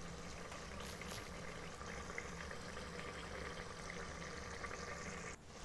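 Bora and chana curry gravy simmering in an open aluminium pressure cooker, bubbling faintly with small pops over a steady low hum, as the gravy thickens and the dish nears done.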